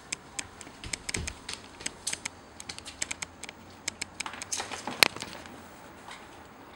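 Irregular light clicks and taps from a handheld camera being handled and moved, with one sharper tap about five seconds in.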